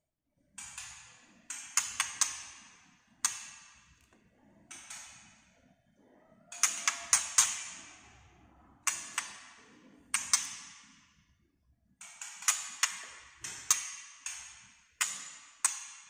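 White-rumped shama giving its sharp "tak" clicking calls, about a dozen in an irregular series, some in quick pairs or triplets, each with a short ringing tail.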